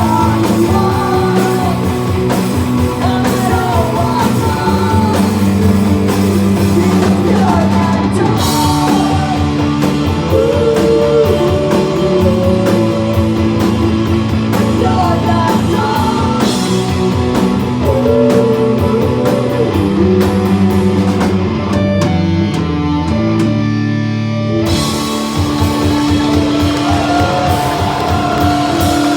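Live rock band playing a loud passage of the song, with guitars and bass over a drum kit. Near the end the cymbals drop out for a few seconds, then the full band comes back in.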